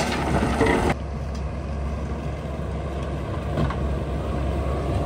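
Skid steer's diesel engine running steadily at work, with rattling clatter in the first second that stops abruptly about a second in.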